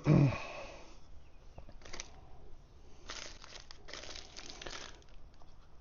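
Soft, intermittent crinkling and rustling of hands handling the new oil filter parts and O-rings, in a few short patches. It follows a brief low vocal sound, falling in pitch, at the very start.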